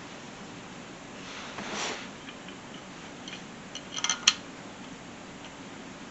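Metal parts being handled during fitting of a new belt tensioner: a brief scrape, then a quick run of light metallic clinks, the last one the sharpest, over a faint steady hum.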